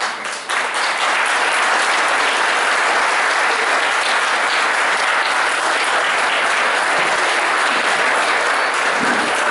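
Theatre audience applauding at the end of an act: dense, steady clapping that breaks out suddenly and holds loud.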